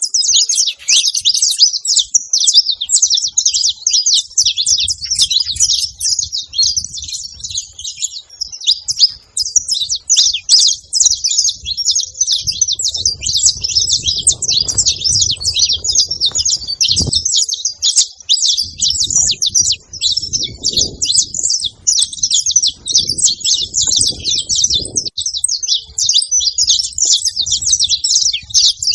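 Saffron finch (canário-da-terra) singing: a long, unbroken run of rapid, high chirps and twitters.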